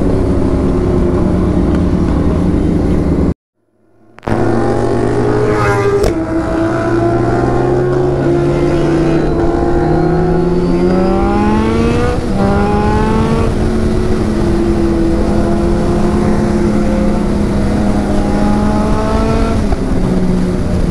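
Motorcycle engine under way, rising in pitch as it accelerates, with a drop in revs at a gear change partway through, then running at a steady speed, with wind rushing over the microphone. The sound cuts out for about a second near the start.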